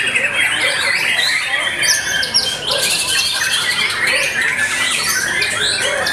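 White-rumped shamas singing without a break, a dense tangle of overlapping whistles, rapid rising and falling phrases and harsh chatters from several caged birds at once.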